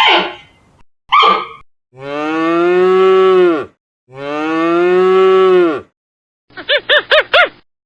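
A cow mooing twice, two long moos that each drop in pitch at the end, after a dog's last short barks. Near the end comes a quick run of five short rising-and-falling calls from another animal.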